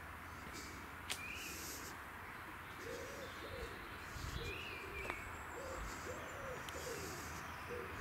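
Pigeon cooing: a run of short, low, arched hoots, several a second, starting about three seconds in. A small bird gives two brief high chirps, one near the start and one mid-way.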